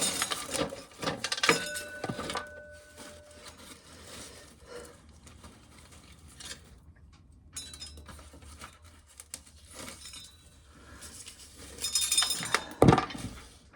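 Dry shelled corn kernels rattling and clinking as they drop into a container filling with corn. The kernels come in a dense rush at the start, thin out to scattered clicks, then pour in thickly again near the end.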